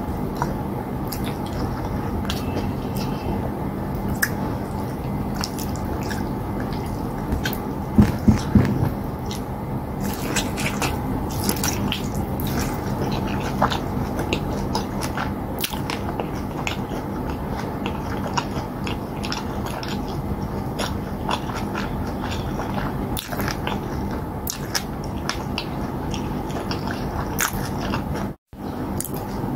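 Close-miked mouth sounds of eating fufu with soup and meat by hand: wet chewing, lip smacks and frequent small clicks, over a steady low hum. A few louder low thumps come about eight seconds in.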